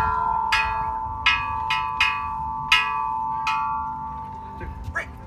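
Tall metal chime tubes of an outdoor playground musical instrument, struck about seven times in quick uneven succession, the clear bell-like tones overlapping and slowly fading out.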